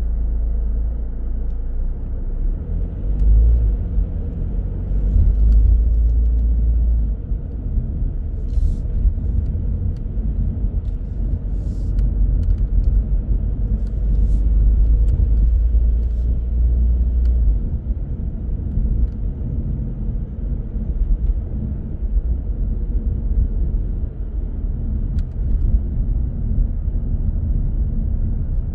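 A car driving: steady low road and engine rumble that swells and eases now and then, with a few faint clicks.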